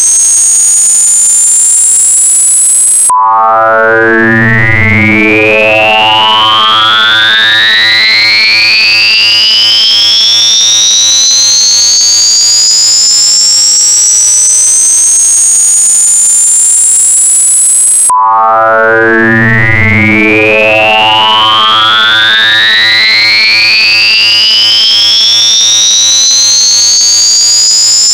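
Electronically generated tinnitus-masking sound: two pure tones gliding slowly upward together from a low hum to a very high whistle, one a little behind the other. The sweep cuts off abruptly and starts again low about three seconds in, and again about eighteen seconds in.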